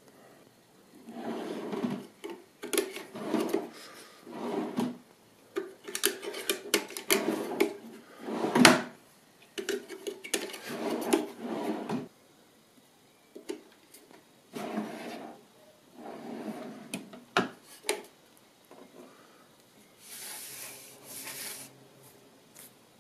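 Plywood drawers on metal ball-bearing slides rolling open and shut again and again, each run a rumbling slide ending in a knock as the drawer stops; the loudest knock comes a little over a third of the way in. A brief hiss near the end.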